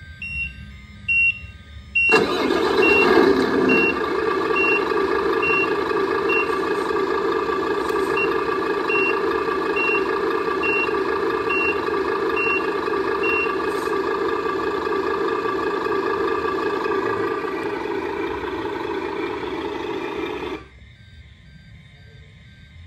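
RC truck sound module playing a diesel truck engine through its small speaker. The engine sound starts about two seconds in, runs steadily and cuts off suddenly near the end. Reversing beeps repeat about once a second until around halfway through.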